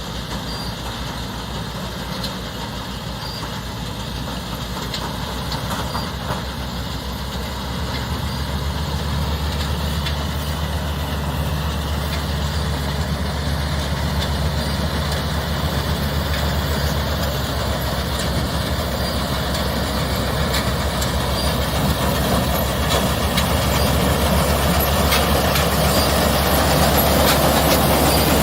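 Tractor diesel engine running steadily, getting gradually louder through the second half.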